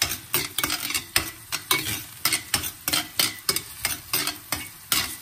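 Garlic frying in a pan, stirred and scraped with a utensil: a quick, irregular run of scraping strokes, several a second, over a light sizzle. The garlic is being sautéed to half-cooked.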